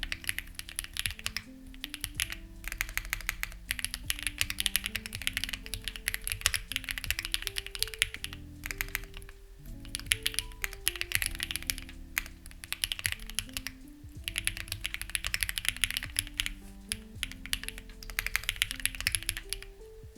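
Fast typing on a Lucky65 v2 mechanical keyboard with stock, unlubricated HMX Ziwei switches: dense runs of keystrokes with short pauses now and then, over soft background music with slow-changing low notes.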